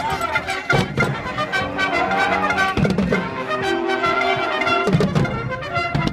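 Music led by brass instruments, several held notes together, over a steady percussive beat.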